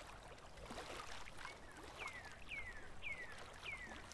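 Faint rushing, water-like noise. In the second half come four short falling whistles, about half a second apart.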